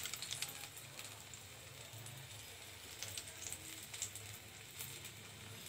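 Faint, steady sizzling of hot cooking oil in a frying pan, with scattered light crackles.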